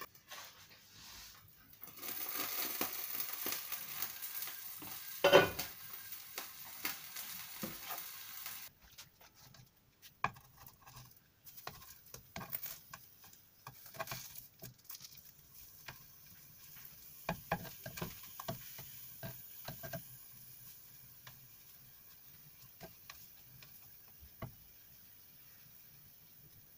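Eggplant slices sizzling and spitting in hot sunflower oil in a frying pan, with one sharp clatter about five seconds in. After about nine seconds the sizzle fades and a plastic spatula taps and scrapes against the pan as the slices are turned one by one.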